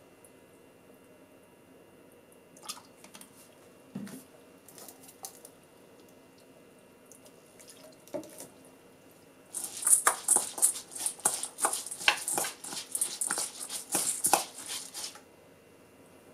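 Metal measuring spoon mixing rice and diced mochi in a stainless steel bowl. It gives a dense run of quick scraping clinks and grain rustle for about five seconds in the second half, after a few scattered light taps of the spoon in the bowl.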